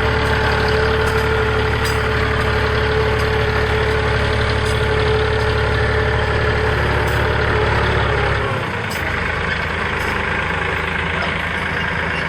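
Tractor engine running steadily. About eight and a half seconds in, its deep low note drops away and the engine runs on more lightly.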